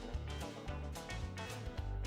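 Background music with a steady beat, guitar and bass.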